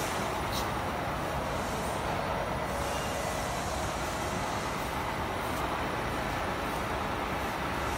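Steady workshop machinery noise, an even rumble and hiss with no distinct strokes, from the ultrasonic welding machine standing idle with its horn raised while the mesh is handled.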